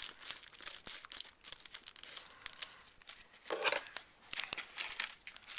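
Packaging crinkling and rustling as it is handled, with many scattered light clicks and a slightly longer rustle about three and a half seconds in.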